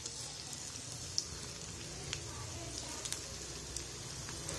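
Chopped onions sizzling in hot oil in a frying pan, a faint crackling hiss with scattered pops.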